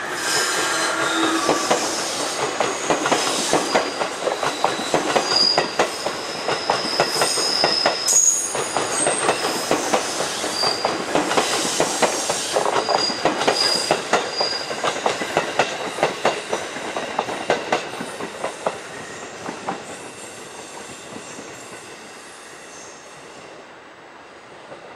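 Container freight train rolling away, its wagon wheels clattering over rail joints and points with short, high wheel squeals. The sound fades over the last several seconds.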